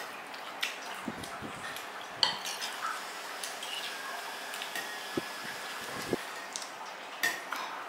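Spoons and dishes clinking and knocking now and then during a meal, a few sharp clinks among softer taps.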